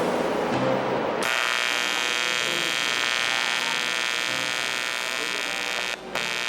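TIG welding arc buzzing steadily. It starts about a second in and dips out briefly near the end.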